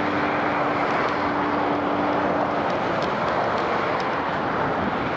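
Jet airliner engines running at an airport, a steady rushing noise with a held low tone that stops between two and three seconds in.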